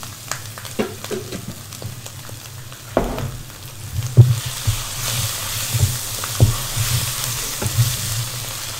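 Chilli and onion frying in oil in a frying pan, sizzling, louder from about halfway through. A wooden spatula scrapes and knocks against the pan as the mixture is stirred.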